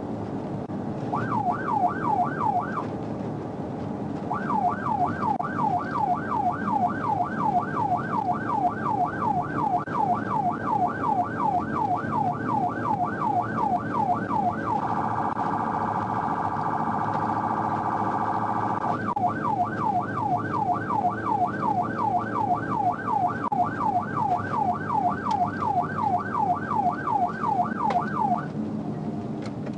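Police patrol car siren in yelp mode, its pitch sweeping rapidly about three times a second over the cruiser's engine and road noise. About halfway through it switches to a much faster warble for about four seconds, then goes back to the yelp, and it stops shortly before the end.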